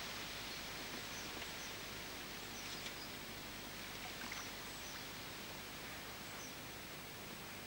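Steady outdoor hiss with faint, short, high bird chirps now and then.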